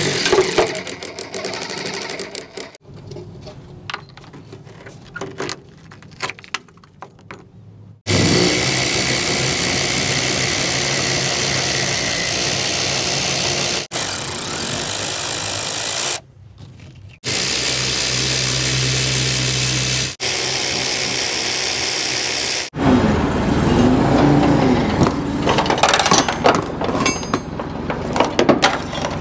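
A run of short cuts: a quieter stretch of scattered clicks and knocks, then steady engine noise, ending with a Clark forklift's engine running as it lifts the camper shell off the pickup bed.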